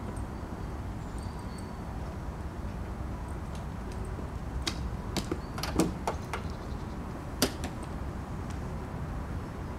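A sniffer dog's claws and paws click and knock against a car's driver door as it jumps up to sniff. There are several sharp knocks in the middle of the clip, the two loudest about a second and a half apart, over a steady low rumble.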